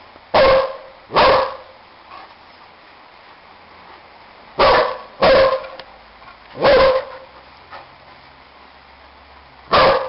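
A dog barking: two barks close together at the start, three more around the middle, and one near the end.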